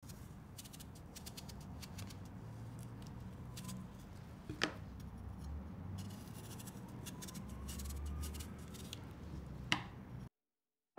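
Kitchen knife shaving the peel off a daikon radish: a run of short, crisp scraping strokes, with two sharp clicks, one about halfway through and one near the end.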